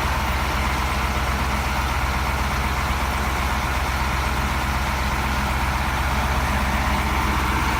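Truck engine idling steadily, a low even hum with no change in speed.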